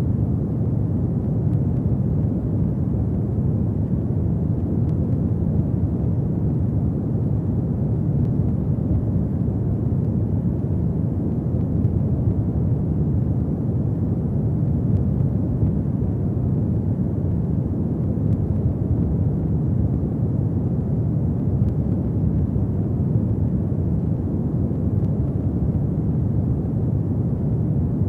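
Fireplace ambience: a steady, low rumble of a burning fire, with a few faint pops.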